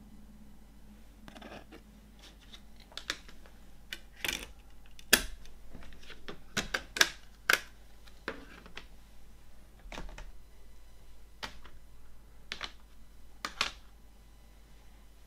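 Hard plastic CD jewel cases handled and set down on a wooden tabletop: irregular sharp plastic clicks and clacks, the loudest about five and seven seconds in.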